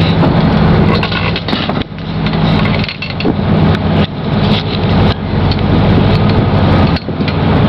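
Charter fishing boat's engine running with a steady low hum, heard from the deck as the boat motors slowly out of the marina.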